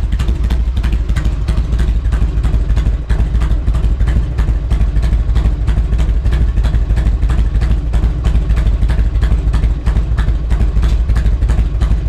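Harley-Davidson Twin Cam 88 V-twin engine running steadily on its newly fitted S&S Super E carburetor, with a brief dip about three seconds in. The engine has just been converted from fuel injection and fired up, and still needs tuning.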